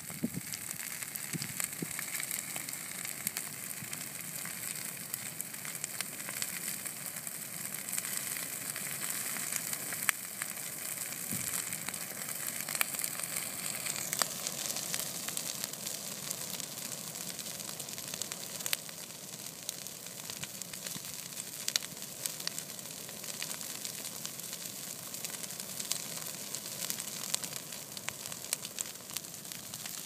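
Wildfire burning through dry grass and shrubs: a steady hiss dense with fast crackles and small snaps.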